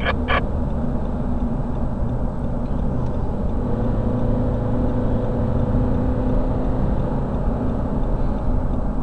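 Steady road and engine noise inside the cabin of a vehicle cruising at freeway speed while towing a caravan, with a faint steady hum joining in for a few seconds mid-way.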